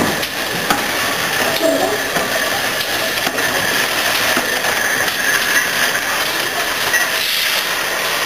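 GWR Manor Class 4-6-0 steam locomotive No. 7828 hissing steadily with steam as it moves slowly away along the track.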